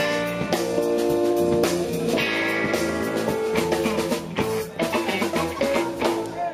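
Live funk band playing an instrumental groove: electric bass and guitar over a drum kit.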